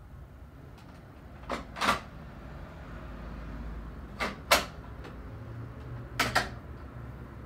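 Three pairs of sharp knocks, about two and a half seconds apart, from things being handled, over a low steady room hum that gains a second low tone about five seconds in.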